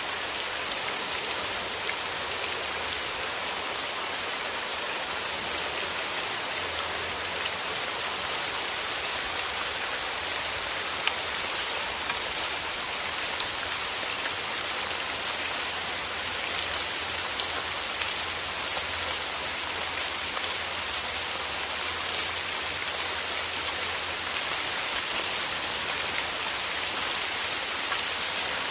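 Steady rain falling, with many small drops pattering on surfaces.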